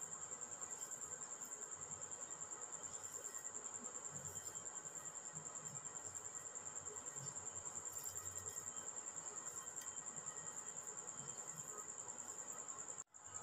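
A cricket chirping in a high, steady, rapidly pulsing trill, faint, with the sound cutting out for an instant near the end.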